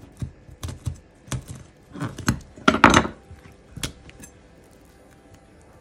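Chef's knife cutting and knocking on a bamboo cutting board while deboning a raw chicken leg, a string of sharp knocks with the loudest cluster about three seconds in, then quiet.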